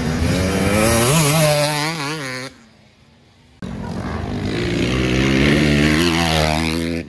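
Off-road dirt bike engines revving as the bikes ride past, the pitch rising and falling with throttle and gear changes. The sound drops away for about a second, about two and a half seconds in, then comes back.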